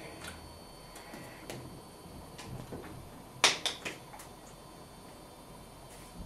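Hands striking and brushing together in sign language: a few soft slaps and claps, the loudest a quick run of three about three and a half seconds in, over a faint steady hum.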